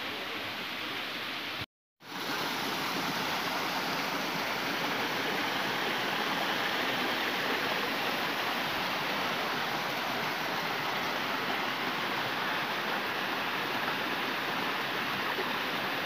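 Steady rush of a rocky stream tumbling over boulders. The sound drops out briefly about two seconds in, then carries on evenly.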